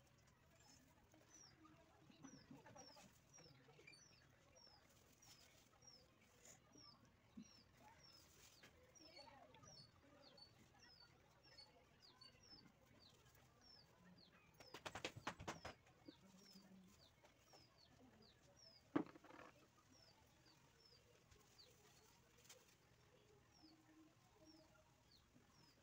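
Faint bird chirping: a long series of short, high, falling chirps about once or twice a second. A brief clatter of clicks comes about 15 seconds in, and a single sharp click, the loudest sound, comes about 19 seconds in.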